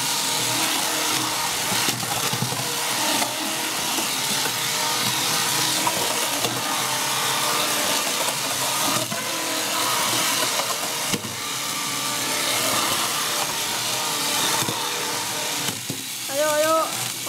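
Small electric motors of two Bandai Break Go! Ga! toy fighting robots running steadily as the robots battle in a plastic arena, a dense whirring clatter with occasional knocks of plastic on plastic. Near the end a short wavering vocal cry.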